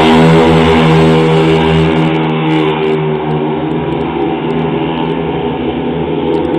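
Speedway motorcycles' 500cc single-cylinder methanol engines running hard, loud at first and easing off about two seconds in as the bikes pull away around the track.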